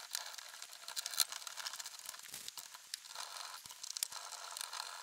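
Rustling and scattered small clicks and taps of hands working the main supply cable into the terminals and retaining clamp of a myenergi Eddi unit, with one sharper click about a second in.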